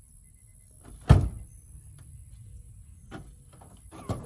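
Thumps on a converted minivan's body: one heavy thump about a second in, then lighter knocks near the end.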